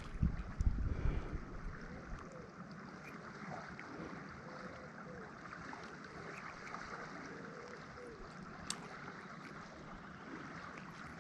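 River water rushing steadily over a shallow riffle, with a few low thumps in the first second or so and a single sharp click a little before the end.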